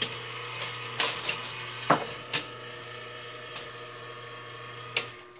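Home-built half-scale bowling pinsetter running its spotting table down to set pins: a motor hums steadily while the mechanism gives a few sharp clunks and clicks. The motor stops with a clunk about five seconds in.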